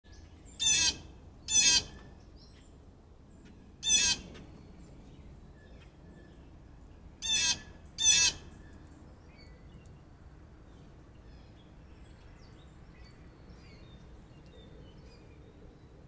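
Five loud, short, harsh bird calls: a pair, a single, then another pair, all within the first eight seconds. Faint distant bird chirps go on after them.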